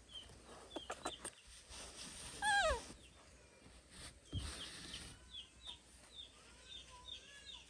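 Animal calls: a short squeal falling steeply in pitch about two and a half seconds in, then a run of quick, high chirps.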